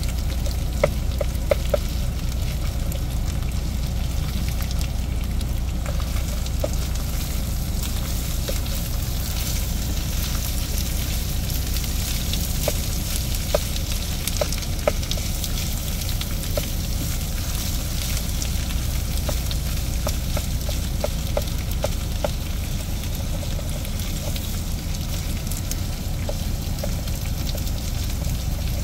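Ground pork, chorizo and chicken sizzling steadily in an electric skillet while a plastic meat chopper stirs and chops through it, knocking against the pan with scattered sharp clicks. A steady low hum runs underneath.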